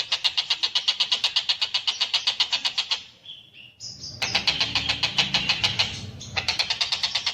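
Tengkek buto bird call played as a masteran recording: a fast, rattling string of sharp notes, about a dozen a second. The rattle breaks off about three seconds in, leaving a few short higher notes, then starts again a second later over a low rumble that lasts about two seconds.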